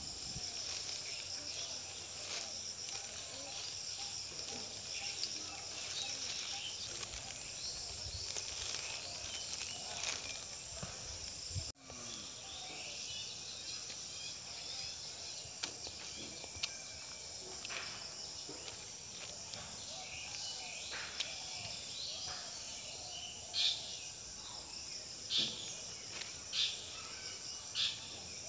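Steady high-pitched insect chorus, with a few short sharp clicks near the end.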